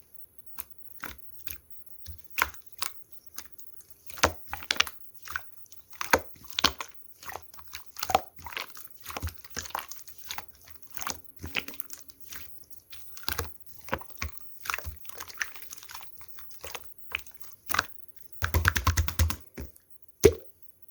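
Hands squeezing and poking slime: a steady run of short, sticky clicks and pops, with a dense burst of crackling lasting about a second near the end.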